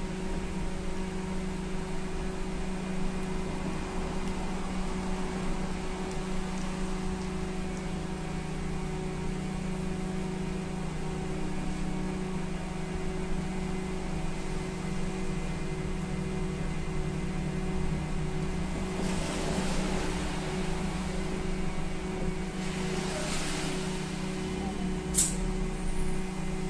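Cabin sound of a SVARZ-MAZ-6275 trolleybus under way: a steady electrical hum with several held tones over a low rolling rumble. Two hissing swells come about two-thirds of the way through, and a single sharp click near the end.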